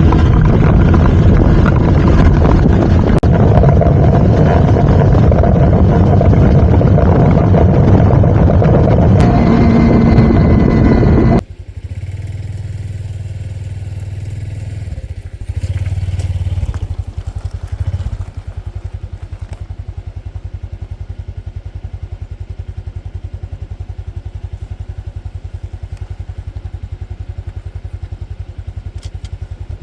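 Loud rushing noise over a running motorcycle engine, then after a sudden cut the Honda Super Cub's single-cylinder four-stroke engine running low and steadily with an even beat. The engine gets louder for a couple of seconds before it settles.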